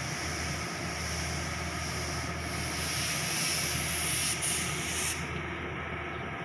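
Heavy tractor unit's diesel engine idling steadily, with a loud hiss starting about two seconds in. The hiss breaks off for a moment and then stops suddenly a little after five seconds.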